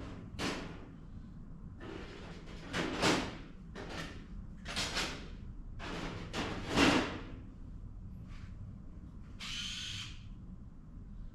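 Bench work on a carburetor being reassembled: several short scraping and knocking bursts from tools and metal parts, the loudest near three and seven seconds in, then a brief whir about ten seconds in.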